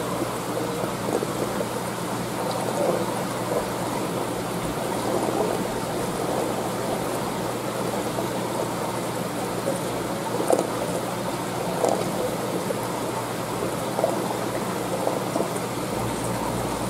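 Aquarium water trickling and circulating steadily, with a few light clicks in the second half.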